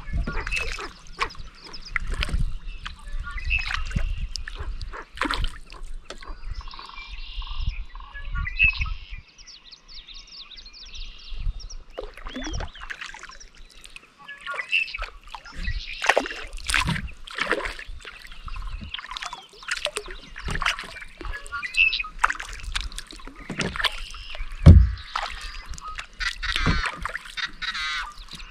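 Birds calling across a lake, mixed with the water sounds of a kayak paddle dipping and dripping. A single loud thump comes near the end.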